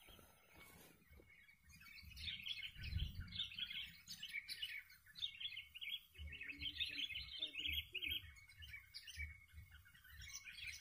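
Sooty-headed bulbuls (kutilang) calling in rapid, bubbly chattering chirps. The calls start about two seconds in and keep going without a break.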